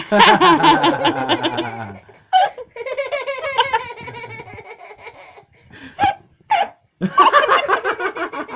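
A toddler laughing in bouts: a low, rapid, pulsing laugh for about two seconds, a higher, thinner stretch after it, then short yelps and another burst of laughter near the end.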